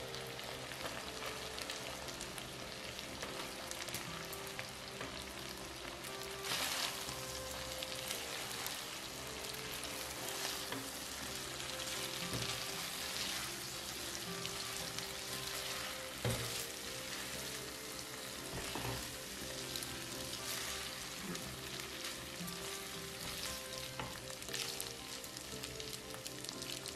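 Shrimp and garlic sauce sizzling steadily in a nonstick frying pan over a gas flame while spaghetti is stirred and tossed through it with tongs, with one sharp knock about sixteen seconds in.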